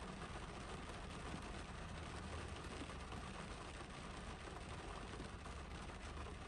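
Steady spring rain falling on the car's roof and windshield, heard from inside the cabin, with a low steady rumble underneath.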